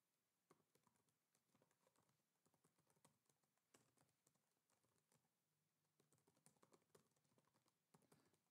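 Very faint computer keyboard typing: a string of soft, irregular key clicks as a sentence is typed.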